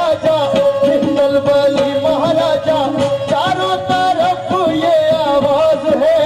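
Live qawwali music: a harmonium plays a melody over a held note, with hand-drum beats and a man's voice singing gliding lines into a microphone.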